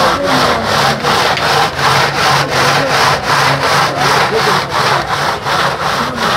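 A metal pot being twisted rapidly back and forth in a bed of crushed ice, the ice grinding and rasping against its sides in an even rhythm of about four strokes a second, with a steady low hum underneath. This is hand-churning milk into sheer yakh (Afghan kulfi ice cream) as it freezes against the cold pot wall.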